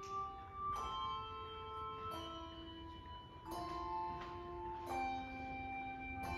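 Handbell choir ringing a slow piece in chords. A new chord of several bells is struck every one to one and a half seconds, and each chord rings on under the next.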